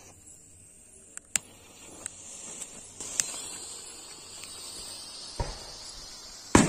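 Colour-smoke fireworks hissing steadily as they pour out smoke after being lit, the hiss building from about two seconds in. A few sharp clicks come early, a thump a little after five seconds, and a louder burst of noise near the end as the second smoke firework catches.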